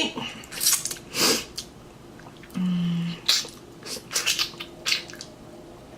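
Close-up eating sounds of juicy fruit: a series of short, wet slurps and lip smacks, with a brief hummed "mmm" about two and a half seconds in.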